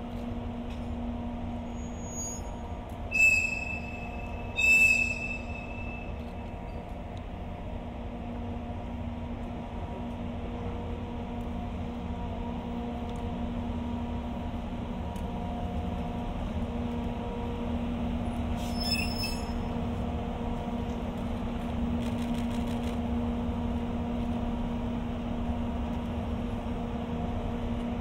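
EF64 electric locomotive standing with its on-board equipment humming steadily, the hum growing a little louder in the second half. Two short, loud, high-pitched whistle toots sound about three and five seconds in, and a fainter high blip comes later.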